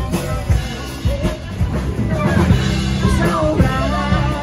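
A rock song with singing over guitar, bass and drums.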